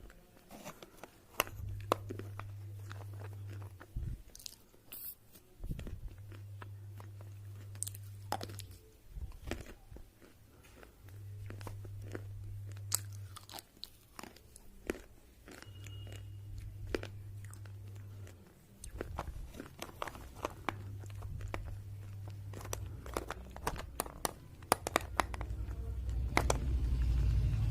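Red slate pencils being bitten and chewed up close: sharp crunches and crackly chewing clicks throughout. A low hum comes and goes every couple of seconds, and a low rumble builds near the end.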